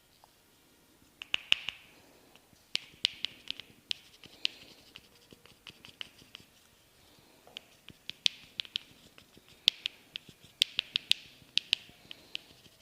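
Crisp snapping clicks from a massage, made by the masseur's fingers and hands, coming in quick runs of three to five with short pauses between.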